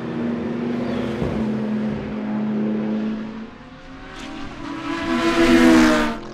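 GT race car engines running at speed. Near the end one car builds up loud and close and passes, with its engine note sweeping, then cuts off sharply.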